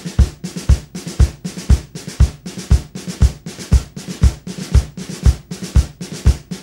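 Background music: a drum kit alone plays a steady beat, with a bass drum about twice a second and sharp snare or hi-hat hits between.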